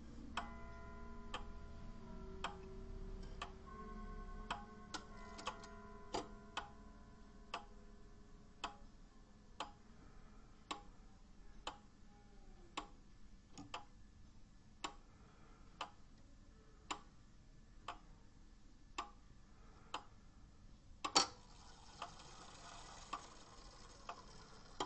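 Seiko 30-day winding wall clock's mechanical movement (4PC-451) ticking steadily, its escapement beating at an even pace. Faint ringing tones fade away over the first few seconds, and there is one louder click near the end.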